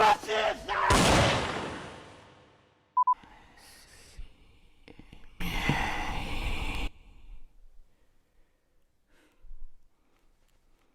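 Loud, breathy exhales close to a microphone: one long burst that fades over about two seconds, then a second about five and a half seconds in. A short beep sounds about three seconds in.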